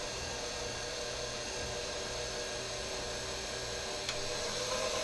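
KitchenAid bowl-lift stand mixer motor running steadily on its lowest 'stir' speed, the dough hook turning through flour and liquid for bread dough. About four seconds in it is switched up to speed 2, and the hum gets a little louder and higher.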